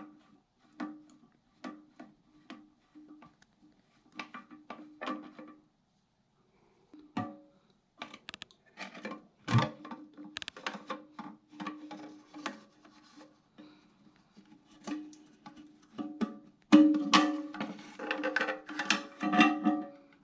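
Background music of short plucked notes with light percussion; it breaks off for about a second near the middle and gets busier and louder toward the end.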